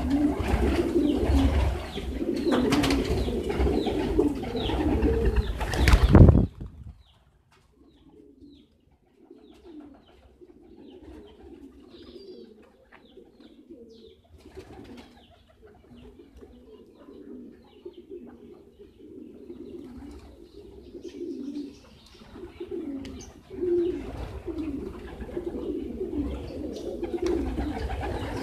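Domestic pigeons cooing repeatedly while feeding on grain. For the first few seconds a loud rush of noise covers the cooing, then cuts off suddenly, leaving the cooing quieter before it builds again near the end.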